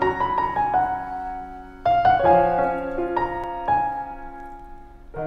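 Slow solo piano music: single notes and chords struck and left to ring out and fade, with a new phrase starting about two seconds in and another at the very end.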